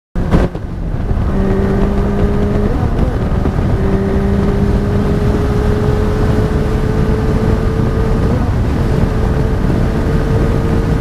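Honda CBR 600 F4i's inline-four engine running at highway speed, its steady note slowly rising in pitch and dropping out briefly about three seconds in, under heavy wind rush on the camera's microphone.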